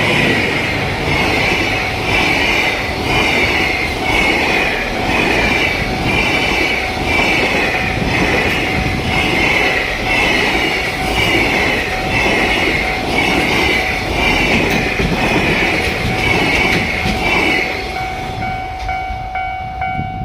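A freight train of loaded container wagons rolling past over a level crossing, wheels clattering, while the crossing's warning bell rings in a steady rhythm of about one and a half strokes a second. Near the end the train noise drops away and the bell rings on more clearly.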